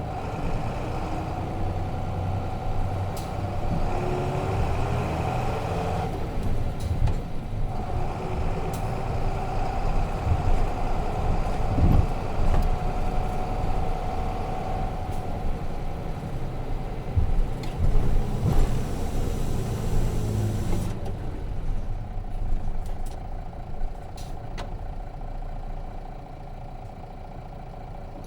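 Nissan Diesel FE6 inline-six diesel engine of a 9 m route bus, heard from inside the cabin, pulling away and rising in pitch, with a break for a manual gear change about six seconds in. From about 21 seconds it drops to a quieter, lower idle.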